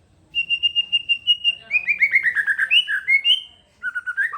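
Songbird singing a fast, loud song: a quick run of high chirps, then a rapid string of falling notes, then after a brief pause a new phrase of repeated two-note chirps near the end.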